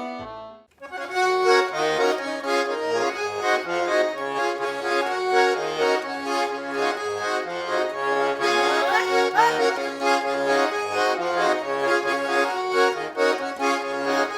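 Accordion playing a lively folk dance tune, alternating bass notes and chords in an even rhythm, starting about a second in after a short break in earlier music. It serves as the instrumental lead-in to chastushki.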